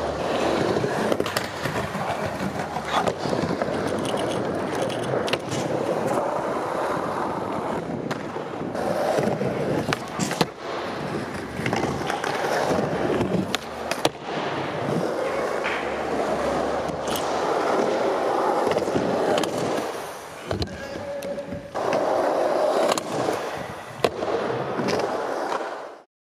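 Skateboard wheels rolling across a skatepark floor, broken by sharp clacks of the board hitting the ground. The sound fades out right at the end.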